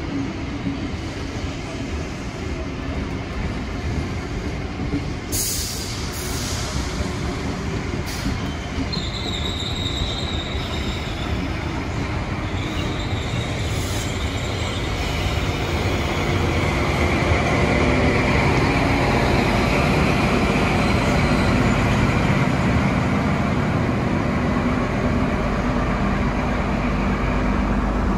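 A train running on the rails, getting louder about halfway through, with high wheel squeal at times.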